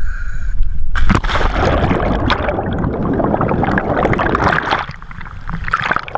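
Camera going under the surface: a splash about a second in, then a dense rush of gurgling water and air bubbles around the submerged camera, easing off toward the end.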